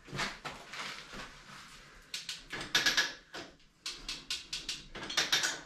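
Hand-operated chain lever hoist (come-along) being pumped under load: bursts of sharp ratcheting clicks in quick succession, stroke after stroke with short pauses, as it tightens the chain dragging a heavy lathe.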